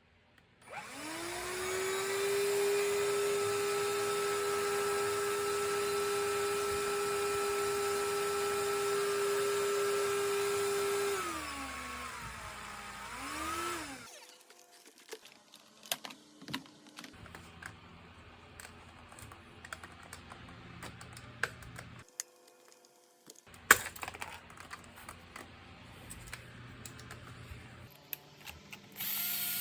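Cordless vacuum cleaner's motor spinning up to a steady high whine, running for about ten seconds, then winding down, briefly spinning up again and stopping. Then come scattered light clicks and knocks, with one sharp click, typical of handling the appliance.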